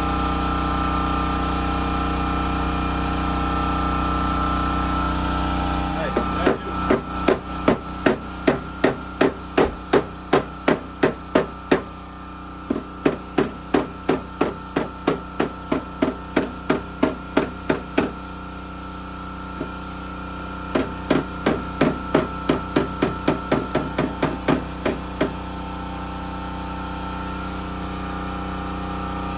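Hammer strikes, evenly spaced at about two to three a second, in three runs with short pauses between, over a steady hum.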